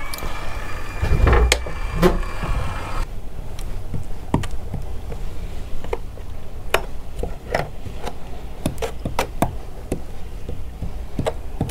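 Cordless electric caulking gun whirring as its motor drives out glue, stopping sharply about three seconds in. Then scattered clicks and light knocks as wooden planks are handled and pressed into place.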